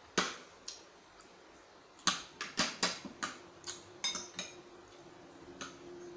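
Metal fork and spoon clinking and scraping against a plate while scooping rice: a string of sharp clicks, a few at first, then many close together from about two seconds in to about four and a half seconds, with one more near the end.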